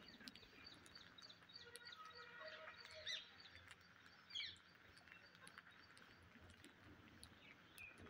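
A flock of rose-ringed parakeets: faint chirps and two short, louder squawks about three and four and a half seconds in, over scattered soft clicks of beaks picking at rice grains on concrete.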